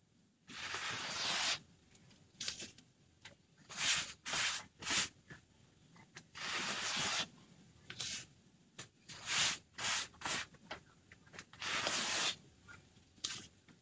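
Rubbing strokes on a reusable craft transfer: irregular strokes, a few about a second long and several short quick ones, with pauses between.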